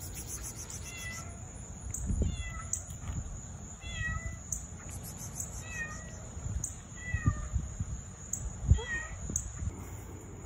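A cat meowing over and over, about six short, insistent meows a second or two apart. A few low thumps come in between, the loudest near the end, over a steady high-pitched hum.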